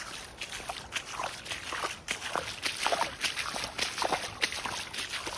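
A hiker wading through water flooding the trail, his feet sloshing and splashing step after step in a run of irregular strokes.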